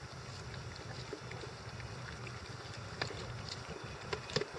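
Icelandic Sheepdog puppies pawing and lapping at the water in a plastic wading pool: small splashes and a few sharp clicks, two of them near the end, over a low steady rumble.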